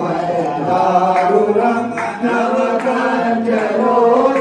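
Several voices chanting a Hindu devotional hymn together before the goddess, the pitches held and overlapping, with a few sharp clicks or strikes now and then.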